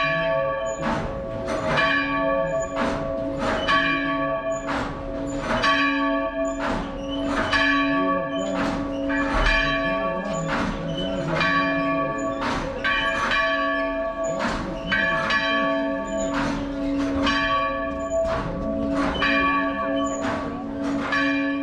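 Church bell ringing, struck steadily a little faster than once a second, each stroke's long hum running on under the next.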